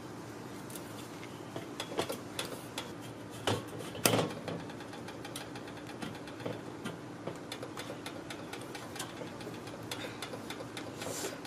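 Metal leg of a Weber kettle grill being twisted and worked in its holder on the bowl: irregular clicks and knocks, the loudest about four seconds in, as a leg that has jammed fast is pried loose.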